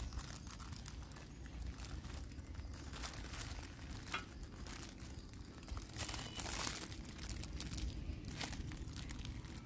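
Thin plastic food-handling glove crinkling and rustling in short scattered crackles as a hand grips and pulls apart a piece of sponge cake, with the longest stretch of crinkling about six seconds in.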